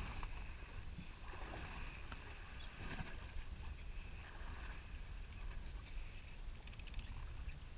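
Wind and sea noise on a boat at open sea: a steady low rumble of wind on the microphone under a faint hiss of water, with a few faint ticks near the end.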